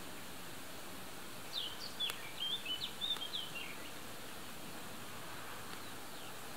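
A small bird chirping a quick run of short, rising and falling notes for about two seconds, starting about a second and a half in, over a steady outdoor background hiss.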